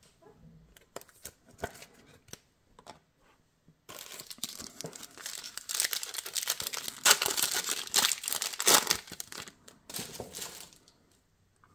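A foil trading-card pack crinkling and tearing open in the hands, starting about four seconds in and running for about six seconds, after a few faint clicks of handling.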